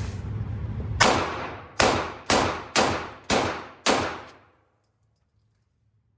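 Six 9mm pistol shots from a Sig Sauer P320, fired in quick succession about half a second apart, each followed by a short ringing decay.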